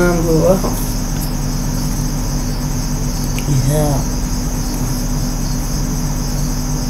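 A steady high-pitched background noise with a low hum beneath it. A voice trails off at the very start, and a short voice sound comes about halfway through.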